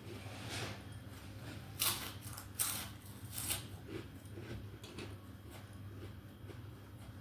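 Someone eating crunchy fried food close to the microphone: about half a dozen separate crisp crunches and chews, over a steady low hum.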